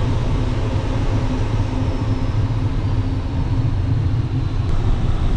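Small aircraft's engines running steadily, heard inside the cockpit as a low, even drone while the plane moves along the runway before takeoff.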